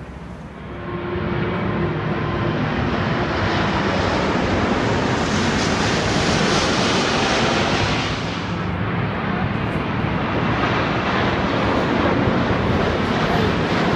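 Jet airliners passing low overhead on approach to land: a four-engine airliner's jet noise builds to a loud, hissing peak and breaks off abruptly about eight seconds in. Then a second, twin-engine jet's noise rises again toward the end.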